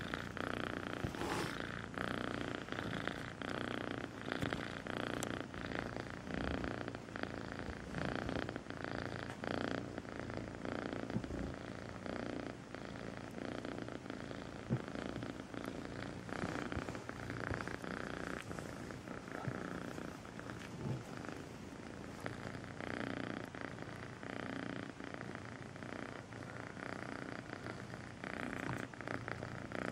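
Grey-and-white kitten purring steadily, a continuous pulsing purr.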